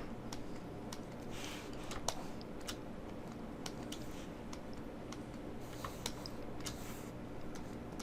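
Scattered light clicks and taps with a few soft scratchy strokes from computer work: stylus on a drawing tablet, mouse and keyboard. A steady low hum runs underneath.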